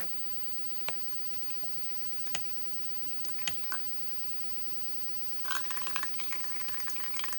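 Coffee dripping through a paper filter in a Melitta one-cup cone into the cup below: a few separate drips, then from about five and a half seconds a faint continuous trickle. A steady electrical hum lies underneath.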